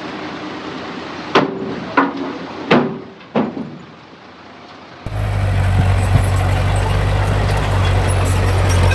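Four sharp clanks, each with a short ring, over a steady hiss. About five seconds in, the sound cuts abruptly to a heavy diesel engine of earth-moving machinery running with a deep, steady drone.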